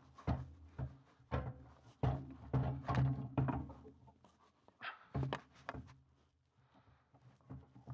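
Irregular knocks and clunks as a heavy Solis solar inverter, just under 80 pounds, is handled and worked onto its wall-mounted bracket. The knocks are a few per second, clustered in two busy stretches, and quieter near the end.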